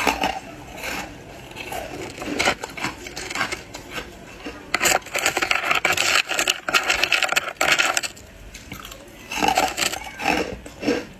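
Ice being bitten and chewed, with sharp cracks at first, then a long stretch of dense crunching, and more crunching near the end.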